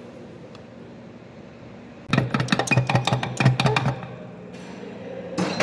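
A low steady hum, then about two seconds of rapid metallic clicking and knocking from hand tools working on the gearbox selector housing, and one more knock near the end.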